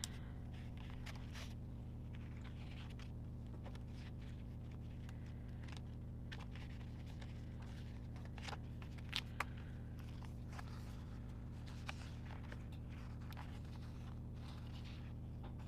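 Paper stickers being handled, peeled and pressed onto planner pages: faint scattered rustles and light clicks, two sharper clicks about nine seconds in, over a steady low hum.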